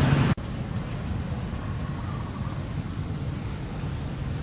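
Steady outdoor background noise, a low rumble under an even hiss, with no distinct events. A louder burst of rumbling noise cuts off abruptly about a third of a second in.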